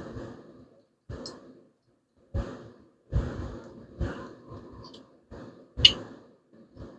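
Irregular knocks and clatters from rocker arms and rocker shafts being handled and worked into place on an engine's cylinder head, about seven separate strikes, with a sharp metallic clink near the end the loudest.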